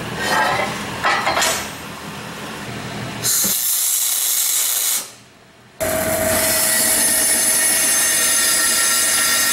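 Handling knocks on a steel bench, then a short electric-arc tack weld on steel plate, a loud hiss lasting under two seconds. After a brief gap, a vertical band saw cuts through steel plate, running steadily with a whining squeal from the blade.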